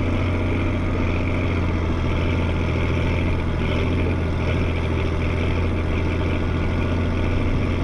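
Combine's large diesel engine running at a steady speed, a constant deep hum with steady tones above it and no change in pitch.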